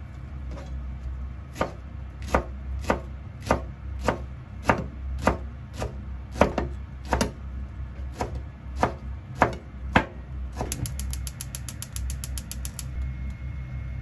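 Chef's knife slicing a rolled stack of perilla leaves on a plastic cutting board: a steady run of sharp knocks against the board, about one every half second, then a quicker run of lighter taps near the end.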